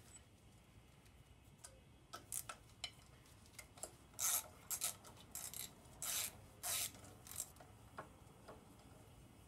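Parts and hand tools being handled during an engine teardown: a run of short scrapes and clicks, the loudest a few seconds in, then dying away by about eight seconds.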